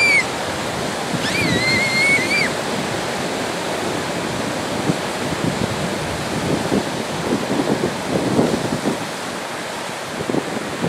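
Ocean surf breaking and washing in, a steady rush of water with wind buffeting the microphone. Two high-pitched cries come in the first few seconds; the second is held for about a second.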